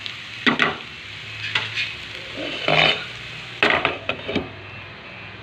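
A spatula scraping and stirring soaked crumbled bread in a nonstick pan over a light sizzle, in about five sharp strokes. Near the end a glass lid is set down on the pan.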